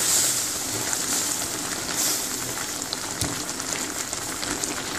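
Spiced egg-curry gravy, water-based rather than oil, bubbling and sizzling steadily in a pan over medium-high heat, with a spatula stirring through it at the start.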